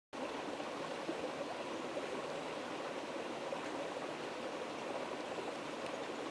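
Steady, even rush of flowing water, as from a stream, starting abruptly right at the beginning.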